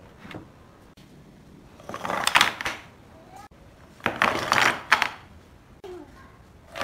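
Small cut wooden blocks tipped out of a bag onto a wooden board, clattering against one another and the board in two pours, the first about two seconds in and the second about four seconds in.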